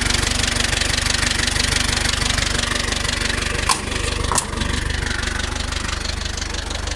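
Steyr 650 Plus tractor's four-cylinder diesel engine running steadily, with two sharp clicks a little past halfway.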